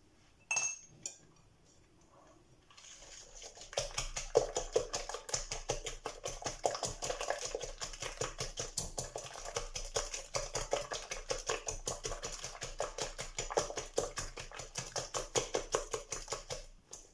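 Coil whisk beating a runny egg, sugar and oil batter in a glass bowl: a fast, even run of clicking taps of the wire against the glass, several strokes a second. A single clink comes about half a second in, before the whisking starts about three seconds in.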